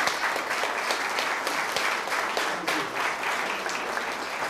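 Audience applauding: many hands clapping together in a dense, steady patter that eases slightly toward the end.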